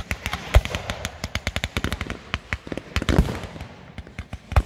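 Aerial fireworks going off: a rapid, irregular run of sharp cracks and bangs, with heavier booms about half a second in, a little after three seconds, and near the end.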